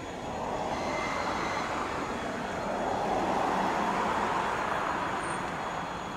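ED9M commuter electric multiple unit rolling into the station: a rushing noise of wheels and motors swells, peaks a little past the middle and eases off as the train slows.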